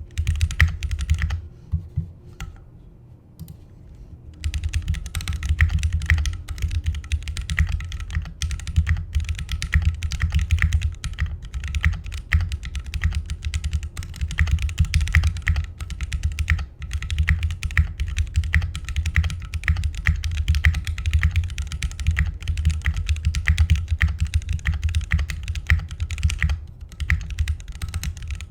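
Typing on a Keychron Q1 aluminium mechanical keyboard with its stock Gateron Phantom Brown tactile switches: rapid, dense keystrokes. A short burst is followed by a pause of a couple of seconds with a few lone key presses, then continuous typing with a brief pause near the end.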